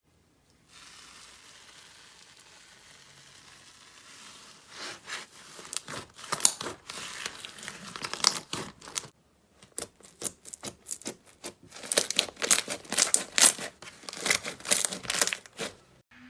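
Slime being squeezed and pressed by hand: a dense run of sharp, sticky clicks, crackles and pops. It starts about four seconds in, stops briefly near nine seconds, then picks up again.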